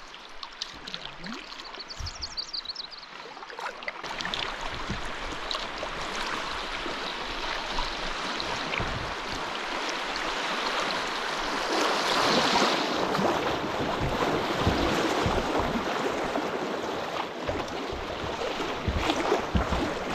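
River water rushing through a shallow riffle of light rapids around a kayak. It grows louder from about four seconds in and is loudest near the middle.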